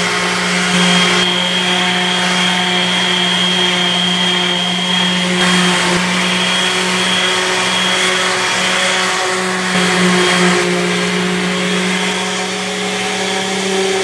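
Electric random orbital sander with a dust-extraction hose running steadily, its pad sanding down the ridges and print lines on a 3D-printed plastic shell. Its motor gives a steady hum over an even hiss, wavering a little about two-thirds of the way through.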